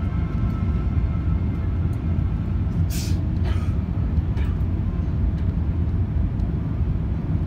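Steady low rumble of cabin noise aboard an Airbus A380-800 on approach, engines and airflow over the wing with flaps extended. A few brief clicks come around the middle.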